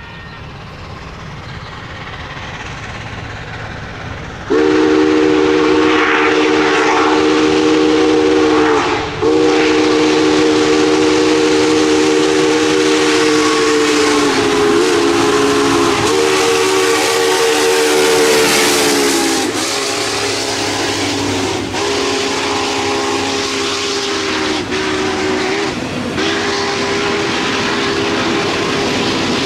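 Steam locomotive whistle sounding a chord in a series of long blasts, each sagging in pitch as it ends, over the hiss and rumble of the running steam train.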